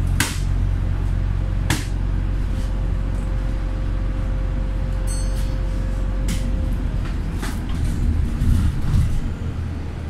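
Steady low road and engine rumble inside a moving car's cabin, with two sharp knocks in the first two seconds and a few lighter clicks later.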